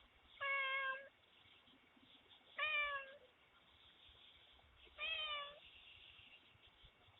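Domestic cat meowing three times, each meow about half a second long and a couple of seconds apart, each falling slightly in pitch. Picked up through a Ring doorbell camera's microphone.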